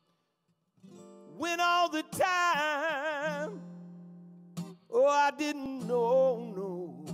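A man singing with an acoustic guitar, two long sung phrases with vibrato on the held notes over plucked guitar notes, after about a second's pause at the start.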